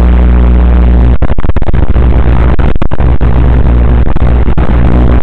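Loud, harsh static from the onboard camera's audio over a steady low electrical buzz, cutting out for split seconds several times.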